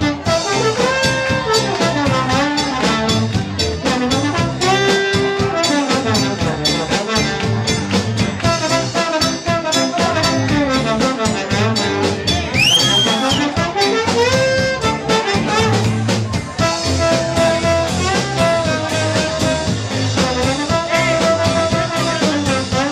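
Live band playing an instrumental passage: a trombone carries the melody over electric guitars and a steady beat.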